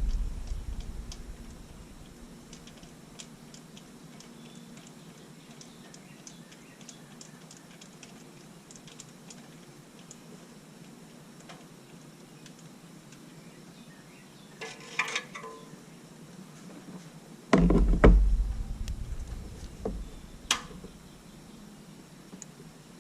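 Work on a truck engine with hand tools: light scattered clicks, a short rattle, then a heavy thump and a sharp click a few seconds later.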